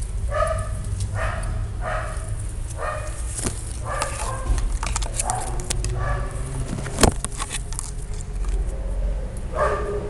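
A dog barking repeatedly, roughly one bark a second, then a pause of a couple of seconds before more barks near the end. A steady low rumble runs underneath, and one sharp knock comes about seven seconds in.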